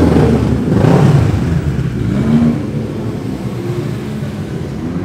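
Vehicle engines revving and accelerating away inside a concrete parking garage. The engines are loudest in the first second, rev up again about two seconds in, then settle into a steadier running that slowly fades.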